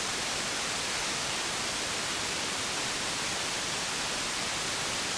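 Steady hiss and static from a radio receiver with no signal on the channel, the open band noise heard between long-distance skip transmissions.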